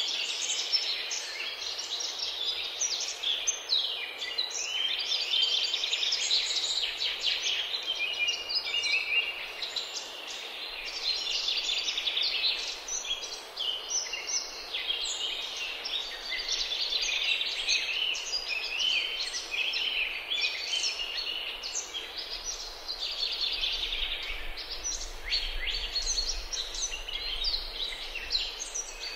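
Dense chorus of many small birds chirping and singing at once, overlapping short chirps and trills with no break.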